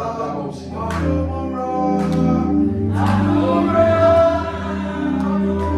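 Choir singing a gospel song over held bass notes, with percussion strikes about once a second.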